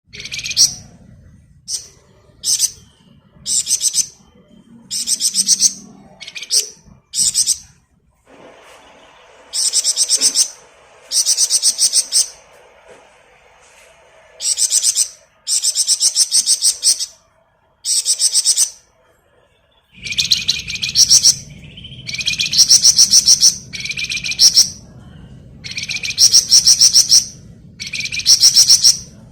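A flamboyan songbird singing a string of fast, dense rattling trills (ngebren). They come as high-pitched bursts of about half a second to two seconds, repeated every second or two, and grow louder in the second half.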